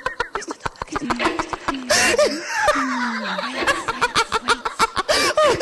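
Experimental stage music: rapid, irregular clicks and rattles under a voice making laugh-like, giggling vocal sounds, with a falling tone about halfway through.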